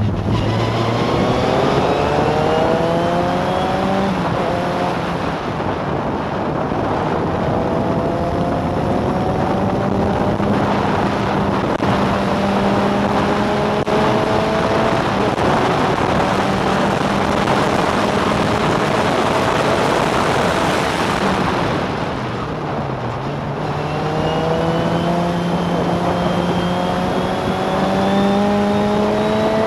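Historic single-seater formula racing car's engine heard onboard at full race pace, rising in pitch through the gears with a run of upshifts, easing off briefly about two-thirds of the way through, then climbing hard again near the end.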